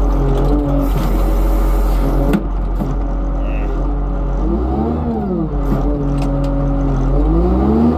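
Log skidder's diesel engine running, its pitch dropping about two and a half seconds in, rising and falling again about five seconds in, and climbing near the end as the throttle is worked.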